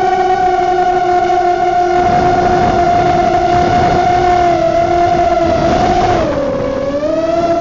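Brushless motors and propellers of a ZMR 150 mini quadcopter (DYS 1806 3100Kv motors) whining steadily in flight, heard from the onboard camera. About six seconds in, the pitch dips as the motors slow, then climbs back near the end.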